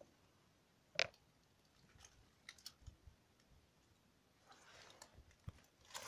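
Near silence, broken by one sharp click about a second in, a few faint ticks, and a soft rustle near the end.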